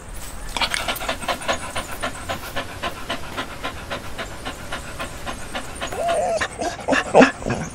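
Dog panting rapidly and evenly, about four to five pants a second.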